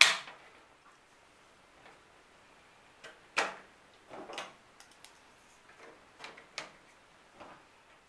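A sharp click at the very start, then a handful of lighter knocks and clicks with quiet gaps between: parts of a CM Storm Trooper computer case being fitted and handled during reassembly.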